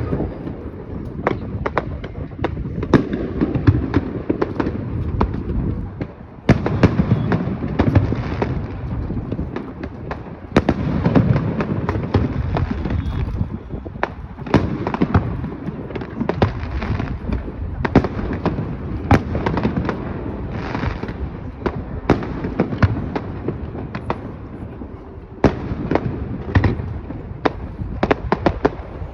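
Fireworks display: a steady run of bangs and crackling from aerial shells going off, many in quick succession and at uneven intervals, over a continuous low rumble.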